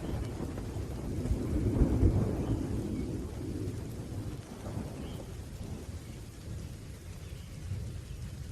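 Thunder rumbling low and long over steady rain, swelling about two seconds in and then slowly fading away.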